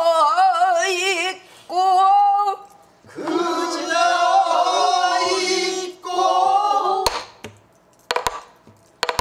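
Pansori singing: a woman sings phrases with wide, wavering vibrato, and a lower phrase is sung back by other voices. In the last two seconds a buk barrel drum gives a few sharp strokes.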